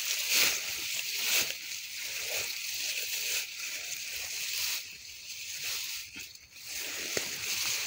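Tall grass rustling and swishing as a hand and arm push through it and the blades brush against the microphone, in uneven strokes with a short lull about six seconds in.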